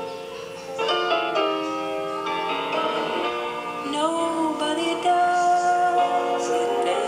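Music: sustained instrumental chords that change every second or so, with a wavering melody line about four seconds in.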